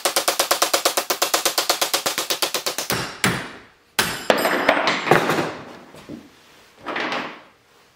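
Rapid light hammer taps on a steel punch driving a retaining pin out of a jet intake shoe, about ten strikes a second for the first three seconds. About four seconds in comes a sharp metallic clatter as the knocked-out pin drops to the floor.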